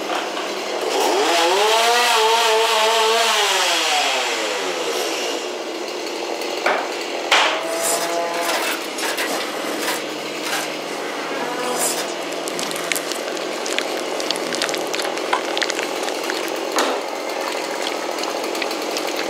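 Horror-attraction sound effects. First comes a long drawn-out cry that rises and then falls in pitch. After it, a steady grinding, rubbing noise runs on, with scattered knocks and clanks.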